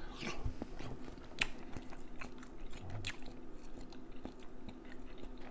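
A person chewing a mouthful of shrimp dipped in butter sauce, close to the microphone: wet mouth sounds with scattered short, sharp smacks and clicks.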